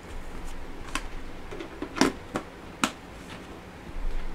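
Light clicks and knocks of hands handling craft supplies on a marble-tile work surface, about five in all, the sharpest about two seconds in.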